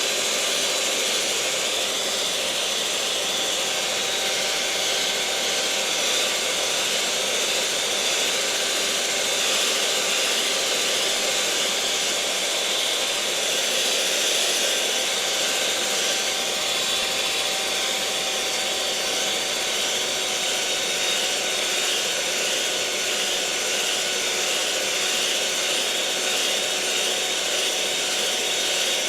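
Electric mixer motor running steadily, a continuous whirring hiss with a faint steady hum.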